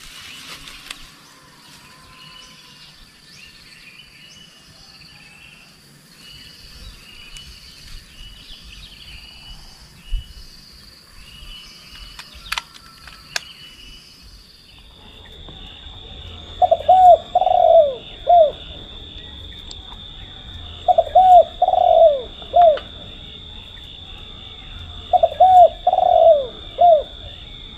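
Spotted doves cooing: three loud phrases of several coos each, about four seconds apart, in the second half. Before them, small birds chirp, and from about halfway through a steady high-pitched drone carries on underneath.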